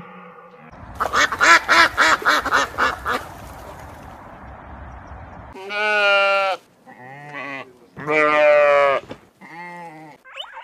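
Animal calls: a quick run of about a dozen short pitched calls in the first few seconds, then several longer calls, the loudest two about six and eight and a half seconds in, with shorter ones between.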